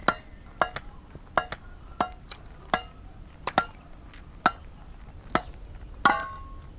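Axe chopping wood: about a dozen sharp chops at an uneven pace, some in quick pairs, one near the end ringing briefly.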